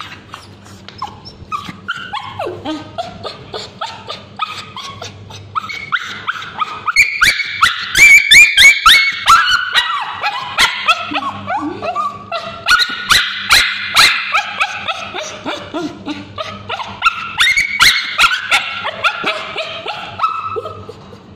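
Male Bichon Frise screaming and yelping in rapid, high-pitched cries, in distress as ointment is applied to its scabies-affected tail. The cries are loudest in the middle, with a few sharp clicks among them.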